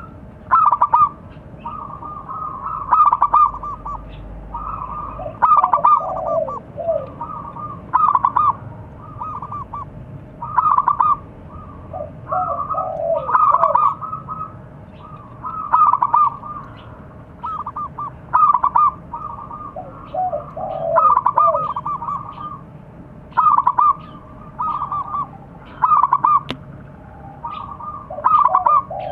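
Zebra dove (perkutut) singing its cooing call song: short rolling coos repeated about every two to three seconds, now and then with a lower, falling phrase.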